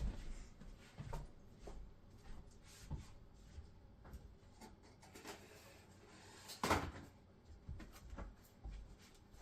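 Hard plastic and metal console parts being handled: scattered light knocks, clicks and rubs, with one louder clack about two-thirds of the way through, as the Xbox Series X's power supply is taken out and swapped.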